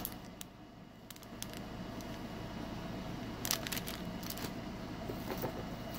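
Cellophane-wrapped craft packaging crinkling as it is handled, a few short rustles about three and a half seconds in, over a faint steady hum.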